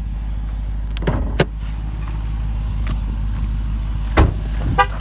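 Dodge Durango SRT 392's 6.4-litre HEMI V8 idling with a steady low hum. Two sharp clicks come about a second in, likely the hood release, and a car door shuts with a thump about four seconds in. Short beeps follow near the end.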